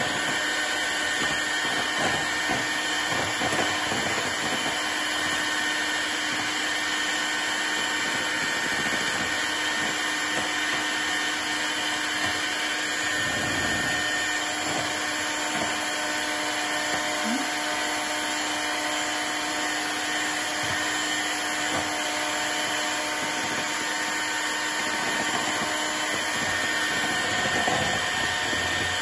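Electric hand mixer running steadily, its twin beaters whipping cream in a bowl.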